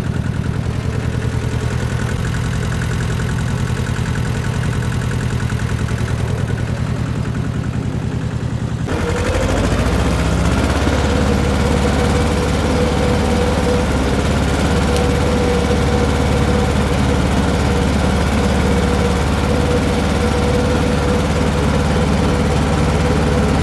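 A small tractor's engine running steadily while pulling a three-point disc harrow through soft ground. About nine seconds in the low rumble grows louder and a steady whine sets in.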